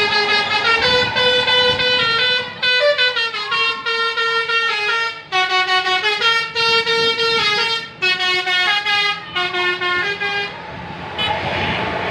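Bus telolet horn of the Basuri type playing a tune: a loud series of changing musical notes in short phrases. The tune stops about ten and a half seconds in.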